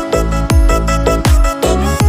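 Background music with a steady electronic beat: a heavy kick drum about twice a second under sustained synth tones.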